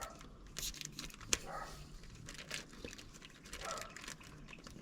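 Scattered light clicks and taps of small tools and parts being handled, with one sharper click about a second and a half in.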